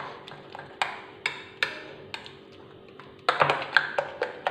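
A metal spoon stirring warm peach purée in a glass bowl, tapping against the glass about twice a second, with a quicker flurry of taps a little over three seconds in. The purée is being stirred to dissolve gelatin in it.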